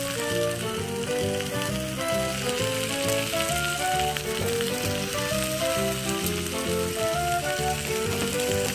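Ribeye steak sizzling in a hot cast iron skillet: a steady fat-spattering hiss. Background music with a melody and a regular bass beat plays throughout.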